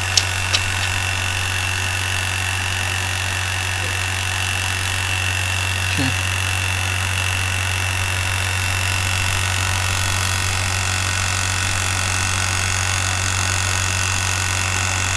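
Electric vacuum pump running steadily with a low, even hum and hiss, drawing vacuum on the laminator's suction plate. A couple of light clicks near the start and a short knock about six seconds in.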